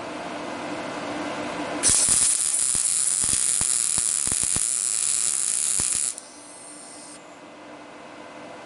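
MIG welder arc from a PrimeWeld MIG 180 laying one short bead: a loud crackling sizzle that starts abruptly about two seconds in, runs about four seconds and cuts off suddenly. A steady hum sits under it before and after.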